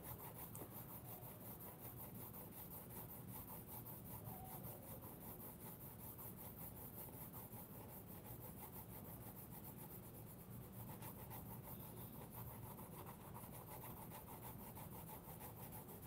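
Faint, quick, even scratching of a Navneet Youva colored pencil shading lightly on thick sketchbook paper, in short strokes all going the same direction.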